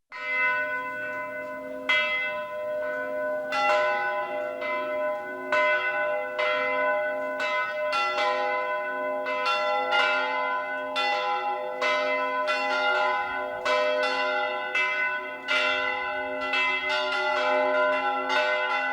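Church bells ringing: several bells struck one after another, about one or two strikes a second, their tones ringing on and overlapping.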